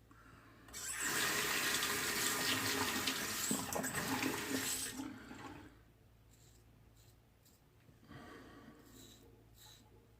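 Water running from a tap into a sink for about five seconds. It is followed by a few faint, short scrapes of a Merkur Progress safety razor over lathered stubble near the end.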